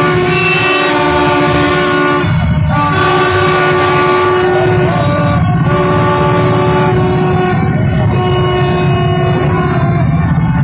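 Vehicle horns blaring in long held chords, several pitches at once, each blast lasting two to three seconds with short breaks between, over the steady drone of many motorbike engines in slow traffic.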